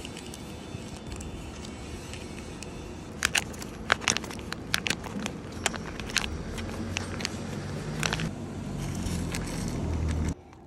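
Plastic seasoning sachets crinkling and crackling in the hand as they are squeezed and shaken over a paper cup of rice, a string of sharp crackles starting about three seconds in. Underneath, a steady background hum grows louder toward the end and cuts off suddenly.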